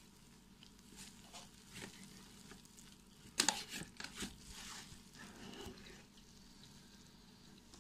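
A hand mixing flour into a wet dough in a plastic bowl: soft squishing and rustling, with a louder cluster of sharp sounds about three and a half seconds in.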